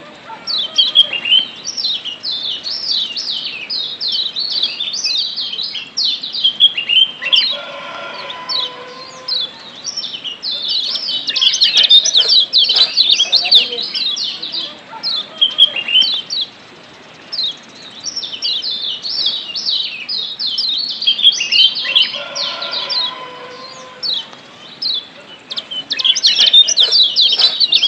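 Kecial kuning (Lombok yellow white-eye, a Zosterops) singing: fast runs of short, high, downward-sliding chirps, phrase after phrase with brief pauses between. This is the 'ciak' chatter played as a stimulant track to get kept kecial singing.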